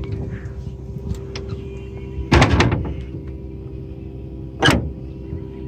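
Motorhome's metal front access panel being handled and latched: a clunk with a brief rattle about two and a half seconds in, and a sharp click of the latch near five seconds, over a steady low hum.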